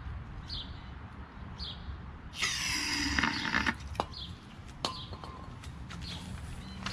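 One hiss of an aerosol can of carburetor cleaner, just over a second long, sprayed into the intake of a small four-stroke engine's carburetor to prime it for starting.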